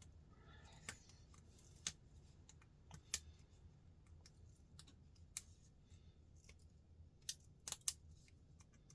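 Scattered sharp clicks from steel pliers working gold-plated pins out of a hot-water-softened plastic RJ45 plug, one every second or two, with three close together near the end.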